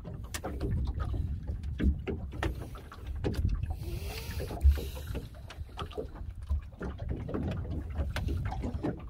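Knocks, taps and clatter of a longline being hauled by hand aboard a small open fiberglass fishing boat, over a low rumble of water and wind against the boat. One louder thump comes about four and a half seconds in.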